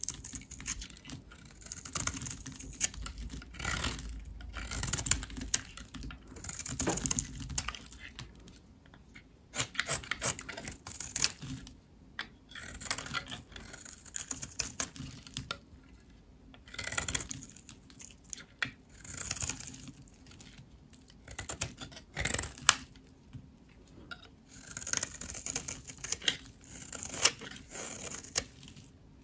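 Dry, hardened soap being cut with a blade: repeated crisp scraping, crackling strokes as the blade passes through the brittle soap, each a second or two long, with short pauses between.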